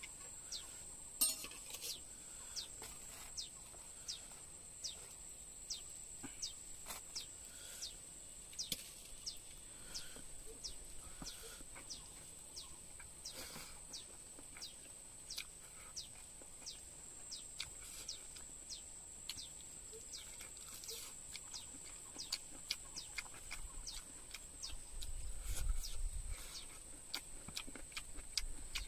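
Birds chirping, many short falling chirps scattered throughout, over a steady high-pitched hum. A brief low rumble comes near the end.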